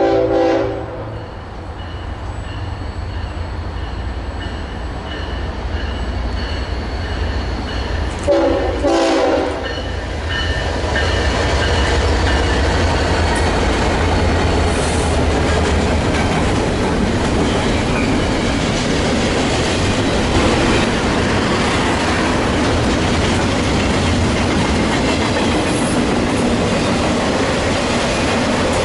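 A double-stack intermodal freight train sounds its diesel locomotives' air horn twice: a short blast at the start and a longer one about eight seconds in, over a steady engine drone. The container cars then roll past with a steady rumble and clatter of wheels on the rails.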